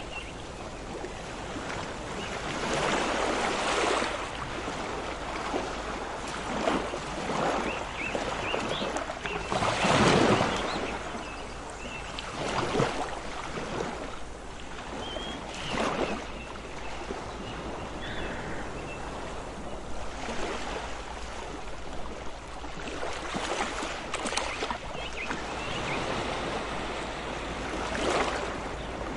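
Ocean surf: waves washing in irregular surges every few seconds over a steady rush of water, the strongest about ten seconds in. A few faint, short high chirps come through in the middle.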